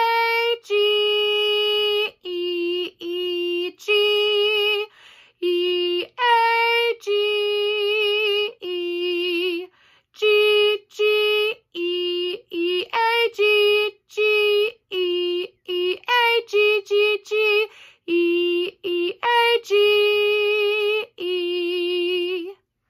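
A woman singing the recorder note names G, A and E on their pitches, one sustained syllable per note with short gaps, in a drill that goes along with the recorder fingerings. A stretch of quicker, shorter notes comes about halfway through.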